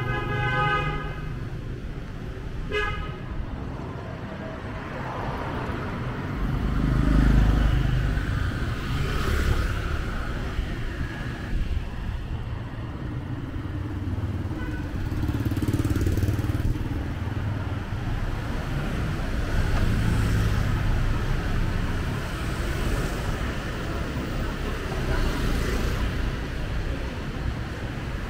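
A vehicle horn honks once for about a second, then briefly again about three seconds in, over street traffic. Cars and motorbikes pass with a low rumble, the loudest going by about seven seconds in.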